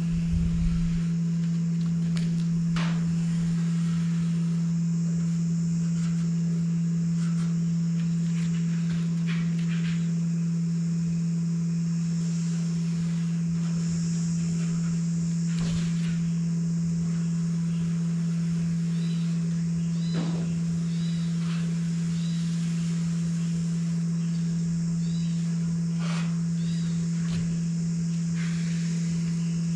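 A loud, steady hum at one low pitch, unchanging throughout. A few light taps and, in the second half, faint repeated bird chirps.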